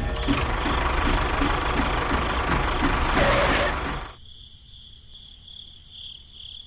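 A small motor-driven machine running with a rumble, a hiss and a regular knock about five times a second, which cuts off suddenly about four seconds in, leaving a faint steady chirping of insects.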